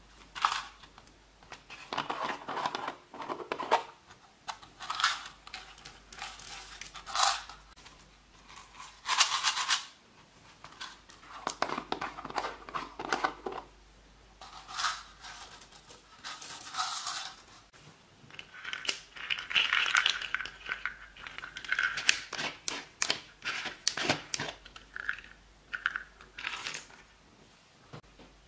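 Small plastic craft jars being handled and opened, and their glitter and sequins shaken and poured out: sharp clicks from lids and containers between irregular bursts of rustling and rattling, with a longer rattle about two-thirds of the way through.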